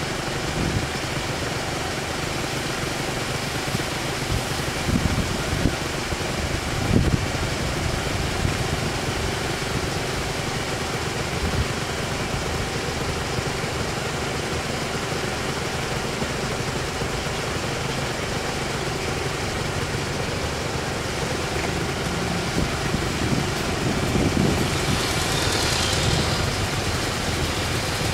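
Car engines idling steadily in a queue at a closed level crossing, with a couple of short knocks about five and seven seconds in.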